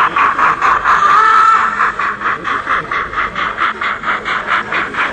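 Steam locomotive exhaust chuffing in a quick, even rhythm of about five beats a second as the engine runs along. A short high tone sounds about a second in.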